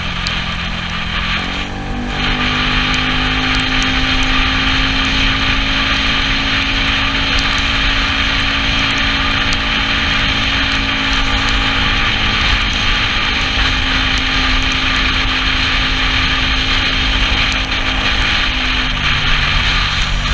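Yamaha Cygnus scooter's single-cylinder 125 cc engine running on the move over a steady rush of wind and wet-road noise. The engine note steps up about a second and a half in as it pulls harder, holds steady, then drops back near the end.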